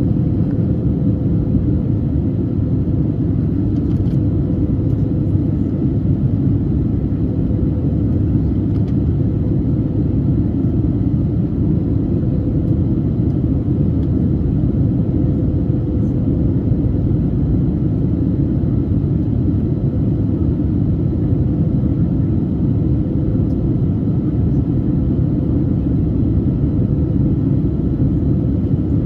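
Steady cabin roar of an Airbus A320neo in its climb, heard from a window seat over the wing: engine and airflow noise, deep and unbroken, with a faint steady tone running through it.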